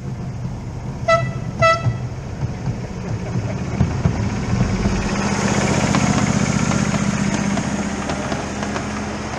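A small live-steam locomotive's whistle sounds two short toots about a second in, the railroad signal for moving off. A rising rush of running noise follows from about five seconds in, loudest around six seconds, then eases.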